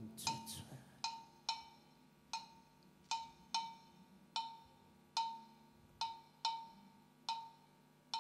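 A single struck percussion instrument with one bright ringing pitch, played alone in a steady beat of about two strokes a second, each stroke dying away quickly.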